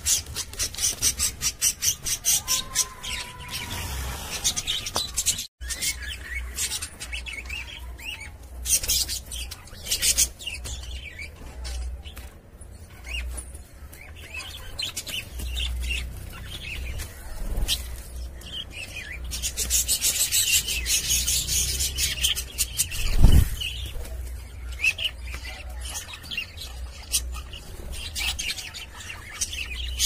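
Budgerigars chirping and chattering in quick, high-pitched runs. A single sharp thump comes about two-thirds of the way through.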